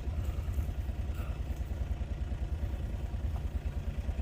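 A vehicle engine running steadily at low revs, with a low, even pulse.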